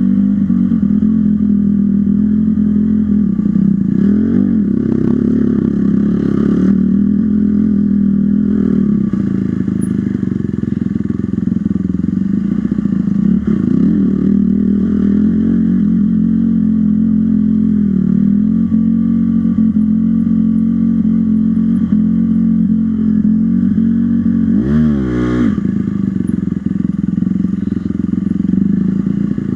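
Dirt bike engine running under constantly changing throttle, its pitch wandering up and down, with one sharp rev up and back down near the end.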